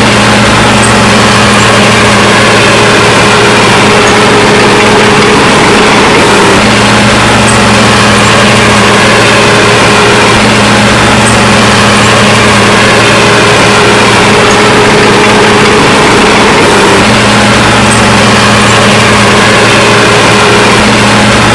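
Heavy diesel engine of an earthmoving machine (bulldozer or dump truck) running steadily with a low hum, its note shifting slightly twice.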